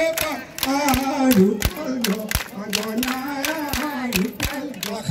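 A single voice chanting in long, wavering held notes, with sharp percussive strokes at uneven intervals.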